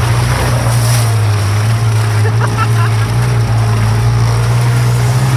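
Off-road vehicle's engine running at a steady low drone while driving.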